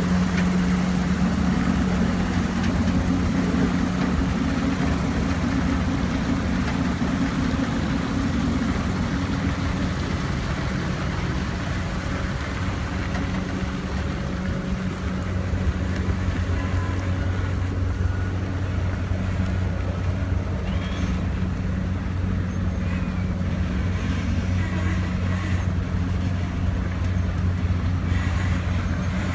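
Heavy diesel engine of a heavy-haul modular trailer rig running steadily at a low, even drone as the multi-axle combination creeps along.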